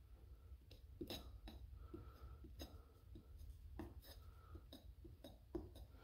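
Faint, short scrapes and light ticks of a metal putty knife spreading tarry Flex Paste over a crack in a rubber tractor tire, a quick series of strokes.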